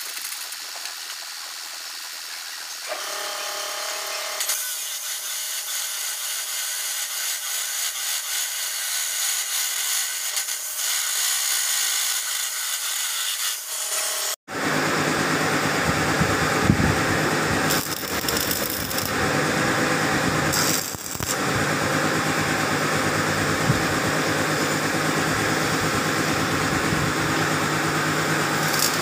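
Electric abrasive chop saw running, coming up in level about three to four seconds in with a steady high whine. After an abrupt break about halfway, a louder steady hissing noise continues.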